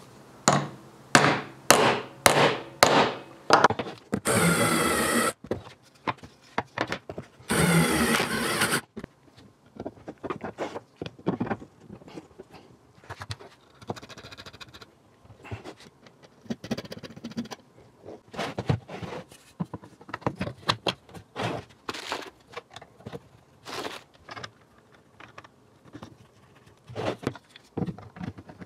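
Hammer blows on carriage bolts, driving their square necks into round holes in a plywood steady rest: about six sharp strikes half a second apart, then two loud bursts of about a second each with a wavering pitch. After that come scattered, quieter knocks and clicks of parts being handled on the workbench.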